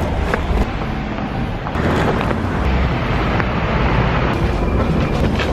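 Wind buffeting the handheld camera's microphone in a steady, heavy rumble, with street traffic running underneath.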